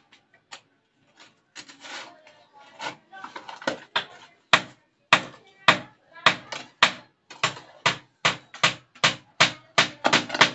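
A long-handled shovel digging into hard ground, its blade striking the soil in short sharp blows. The blows are scattered at first and then come steadily, about three a second, from about halfway in.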